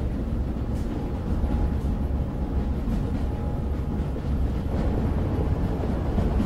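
Steady low rumble of a boat under way, the noise of its motion and the wind with no clear engine note.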